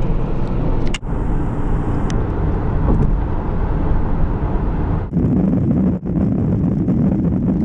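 Steady road and engine noise inside a moving car, a dense low rumble. It breaks off briefly about a second in and again around five and six seconds, where one shot cuts to the next.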